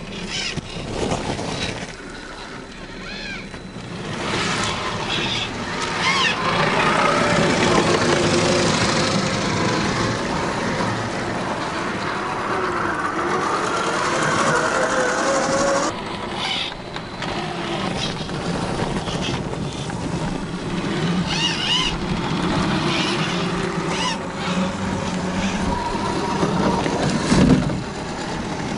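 Electric motors and gear drivetrains of 1/10-scale RC crawler trucks whining, the pitch rising and falling with the throttle as they climb and descend rock. In the middle there is a wash of splashing noise while a truck wades through water, and there are scattered knocks of tyres on rock.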